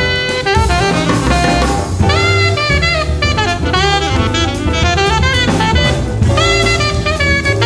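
Jazz quartet of saxophone, piano, bass and drum kit playing a samba, the saxophone out front in quick runs of notes over the rhythm section.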